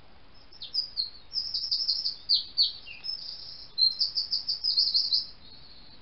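Common blackbird calling: a quick run of sharp, high notes, several a second, some sliding downward, in two spells with a short break about three seconds in.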